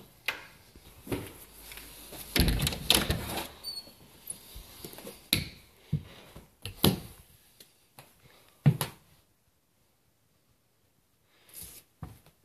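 A string of knocks, thumps and handling noises as someone gets up through a ceiling hatch into an attic, with a dense cluster about two to three seconds in and a sharp thump near nine seconds, then near quiet.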